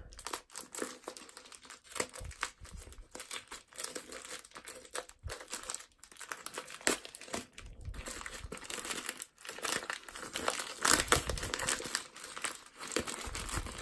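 Taped-up parcel packaging being torn open and crumpled by hand: irregular crinkling, crackling and tearing of wrapping and tape, somewhat louder near the end.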